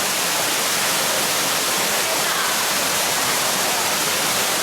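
Steady rush of falling water from an indoor artificial waterfall, an even hiss that holds level throughout.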